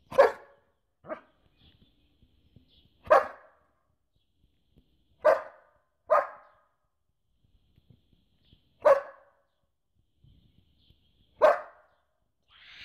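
German Shepherd barking in single barks spaced two to three seconds apart, about seven in all, with a softer one about a second in.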